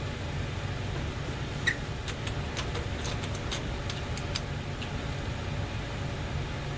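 Steady low hum of a running furnace, with scattered small clicks and taps of hands and tools on the water heater's heat exchanger as it is worked loose; one sharper click about a second and a half in.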